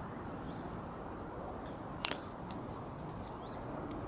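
Outdoor hilltop background: a steady low hiss of wind and distant city, with a few faint short high chirps and a single sharp click about two seconds in.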